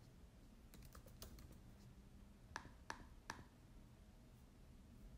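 Faint keystrokes on a computer keyboard: a few light taps about a second in, then three sharper clicks spread over a second, over a low background hum.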